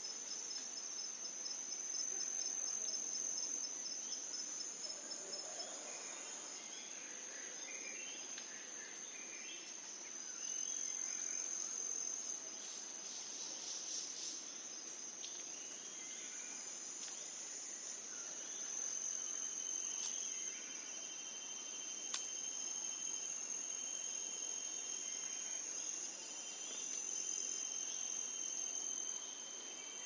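Steady high-pitched insect trilling, with scattered short bird chirps in the first half and a second, lower, broken insect trill joining about two-thirds of the way through.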